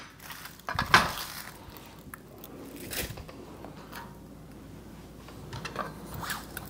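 Kitchen knife cutting a yellow onion on a cutting board: one sharp knock about a second in, then softer crunches and taps.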